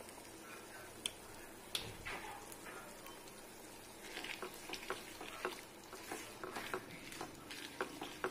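Sago pearls cooking in bubbling sugar syrup and ghee in a pan, a faint steady sizzle. From about four seconds in, a spatula stirs through the pearls, adding quick short scrapes and taps against the pan.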